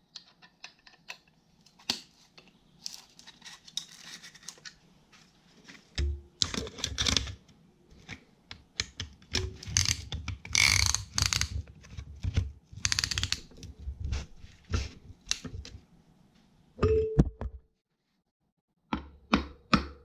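Metal clicks, rattles and knocks as a piston ring compressor is worked around a piston in a tractor engine's cylinder sleeve. Near the end comes a run of evenly spaced taps as the piston is driven down into the bore with a hammer's handle.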